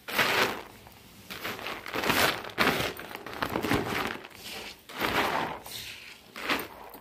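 Freshly washed wheat grain being scooped by hand into a woven plastic sack, the grain swishing and the sack crinkling in a series of short rustling bursts about a second apart.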